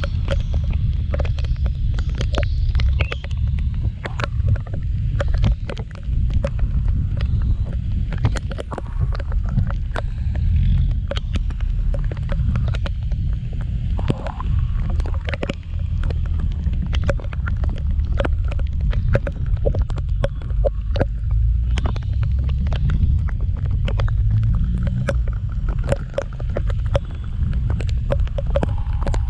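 Heavy wind rumble on a camera microphone riding on a moving scooter in the rain. Many sharp ticks run through it throughout, likely raindrops striking the camera.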